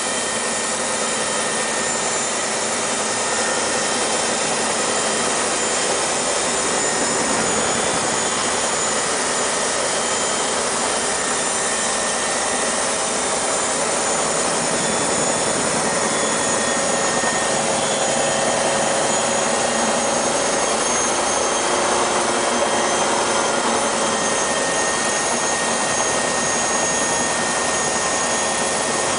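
Army helicopter in flight, heard from inside the cabin: a steady, loud rush of engine and rotor noise with a few steady high whines running through it.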